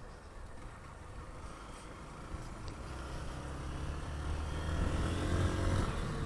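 Honda motorcycle engine pulling away and accelerating. It gets steadily louder and rises in pitch from about halfway, peaking near the end.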